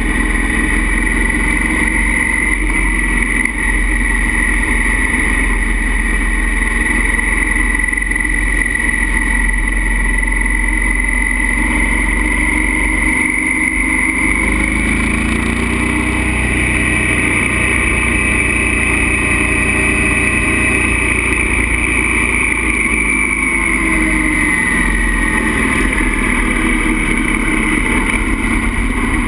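Motorcycle engine running under a steady rush of wind, heard from on the bike. Its pitch rises about halfway through and falls back again near the end as it speeds up and eases off.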